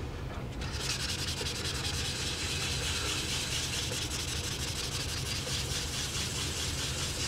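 Wet sandpaper on a small hard sanding block rubbing back and forth over the clear coat of a plastic motorcycle fairing, a steady scratchy hiss that starts about a second in. The light strokes are knocking down a raised spot in the clear coat to level it.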